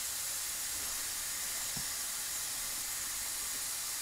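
Steady hiss of steam from a twin-cylinder modified Mamod MEC1 toy steam engine, with no regular chuffing of the cylinders.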